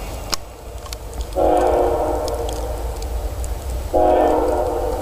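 CSX diesel freight locomotive's air horn sounding a chord of several tones in two long blasts, the first starting about a second and a half in and the second just before the end, as the train approaches.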